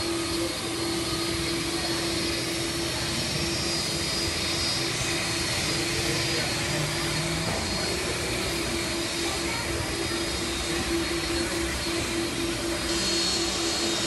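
Steady noise of a jet airliner's engines and rushing air, a broad hiss with a constant hum beneath it that holds level without rising or falling.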